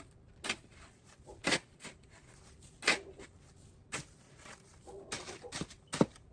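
Irregular sharp crunches and short scrapes in snow, about eight to ten unevenly spaced strokes, a few of them drawn out a little longer.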